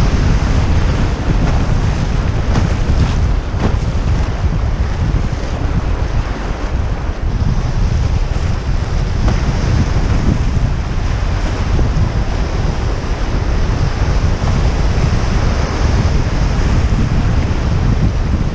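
River rapids rushing and splashing around a canoe in a steady churning hiss, with wind rumbling on the microphone underneath.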